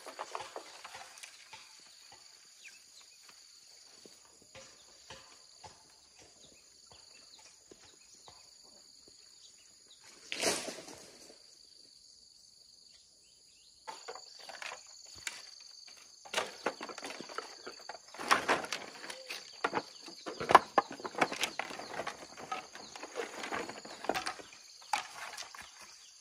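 A steady high insect drone, with irregular scrapes and knocks of handwork that come thick and uneven through the second half, the loudest one about ten seconds in.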